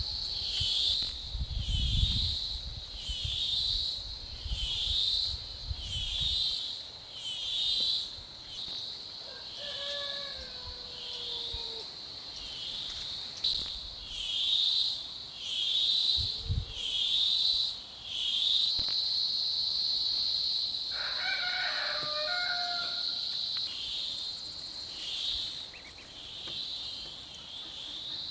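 Insect chorus shrilling in high-pitched pulses about once a second, running unbroken for several seconds past the middle. Two short bird calls come through, one about ten seconds in and one near twenty-two seconds, with low rumble in the first few seconds.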